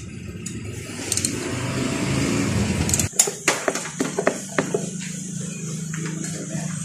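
A low rumbling noise, then a quick run of about seven sharp metallic clicks and clinks from hands working fasteners and tools at a motorcycle's rear shock mount, followed by a steady low hum.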